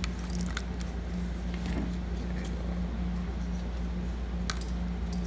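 Light metallic clinks and ticks, scattered and irregular, as a nylon-and-leather knife roll bag is handled and its metal hardware knocks together, over a steady low hum.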